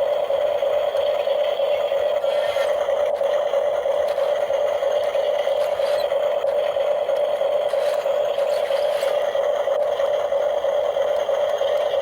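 A small electric motor running steadily with a constant mid-pitched whine and a little rattle.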